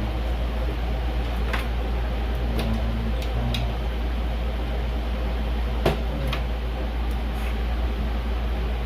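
Light clicks and knocks from handling computer parts and unplugging connectors, the sharpest about six seconds in, over a steady low hum.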